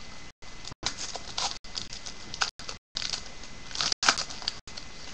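A trading-card pack wrapper being torn open by hand, with irregular crinkling and crackling, broken up by several brief audio dropouts.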